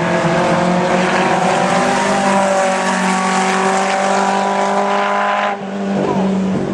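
Race car engine running hard at high revs, its note steady and rising slightly. About five and a half seconds in it breaks off briefly, then picks up again.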